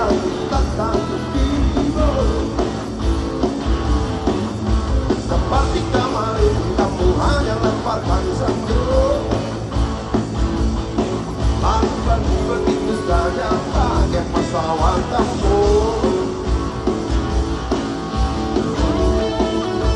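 Live rock band music with electric guitar, drums keeping a steady beat, and singing.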